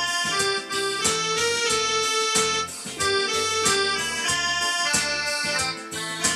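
Synthesizer keyboard playing a folk-style melody in held, reedy notes over a bass line and a steady beat from the keyboard's accompaniment.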